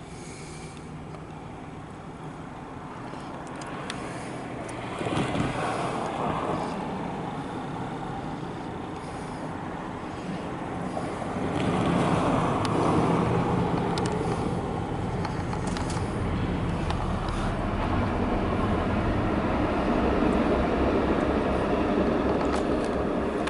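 MARC commuter train passing: a rolling rumble of wheels on rail that builds and stays loud, with a few sharp clicks.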